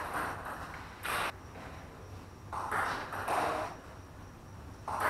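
Table tennis rally: the ball clicking off paddles and table in turn, about once a second, each hit ringing out in the hall's echo.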